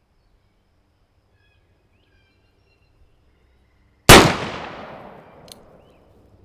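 A single shot from a Pietta 1858 Remington Navy .36 caliber black-powder percussion revolver, about four seconds in. The sharp report is followed by a long echo that fades over roughly two seconds.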